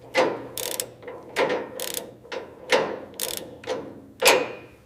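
Ratchet wrench being worked to tighten a fastener: a run of sharp metallic clicks and clanks, about one every half second, each ringing briefly.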